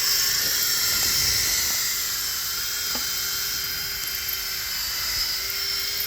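Power drill boring a hole into a concrete footer, running steadily throughout.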